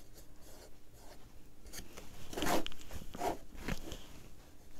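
Fingertip rubbing paint along the edges of an MDF box: soft scuffing and rubbing strokes, the loudest a little past halfway.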